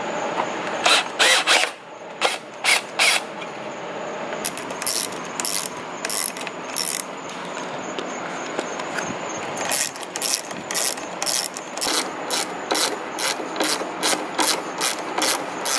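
Hand ratchet wrench clicking in repeated short strokes as a bolt on the intercooler's mounting bracket is tightened: a few bursts in the first three seconds, then a steady run of about two strokes a second in the second half.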